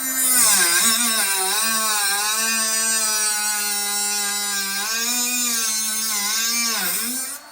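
Handheld power tool cutting through metal: a steady motor whine under a loud cutting hiss. The pitch sags briefly under load about half a second in, around five seconds and near seven seconds, and the tool stops just before the end.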